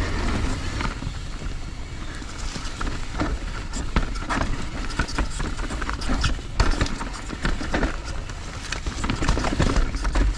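Mountain bike rolling over a dirt trail: a steady wind rumble with irregular clicks and knocks of the bike's chain and parts rattling over the bumps.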